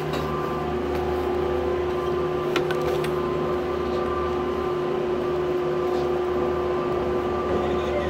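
Doppelmayr cabriolet gondola running through its terminal: a steady mechanical hum with a constant whining tone, and a couple of sharp clicks about halfway through as the open stand-up cabins move around the turnaround.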